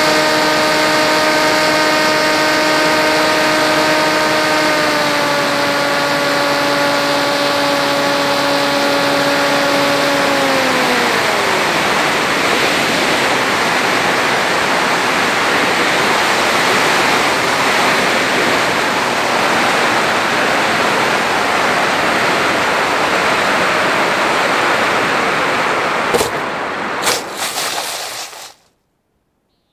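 Onboard an FX-61 flying wing: the electric motor and propeller whine steadily, drop slightly in pitch about five seconds in, then wind down to nothing around eleven seconds as the throttle is cut. Wind rushes over the airframe during the unpowered glide. Near the end a few knocks mark the landing in the grass, and the sound cuts off.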